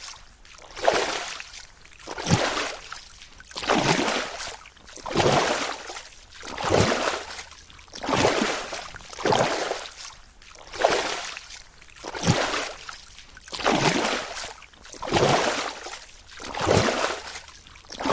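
Water rippling and sloshing against a boat in regular swishing surges, about one every second and a half.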